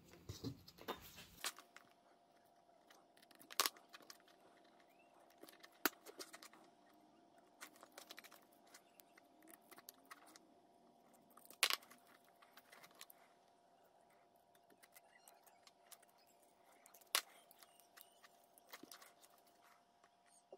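Faint crinkling and crackling, with a few sharp clicks spread through, as gloved hands peel cracked, deteriorated insulation and sheathing off a wire from a Mercedes M119 lower engine harness.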